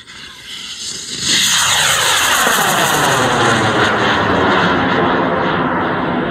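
Hobby high-power rocket motor igniting and burning as the rocket lifts off: a loud, steady rushing roar that builds over the first second or so, then holds, with a sweeping, falling phasing in its tone as the rocket climbs, easing slightly near the end.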